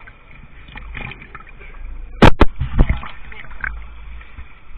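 Sea water splashing and sloshing around swimmers at the side of a boat, with two sharp, very loud knocks a little past halfway and a smaller one just after.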